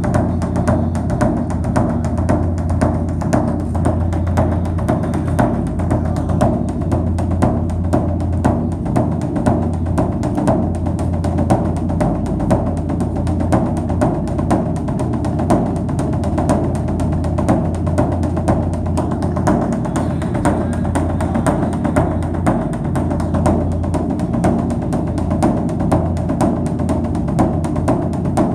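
Drums played in a fast, steady, unbroken rhythm of loud, deep beats.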